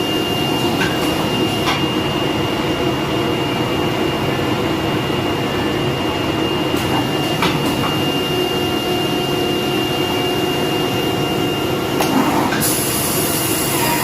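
CNC oscillating knife cutting machine running while cutting carpet: a steady mechanical noise with a thin, high, steady whine, turning to a brighter hiss near the end.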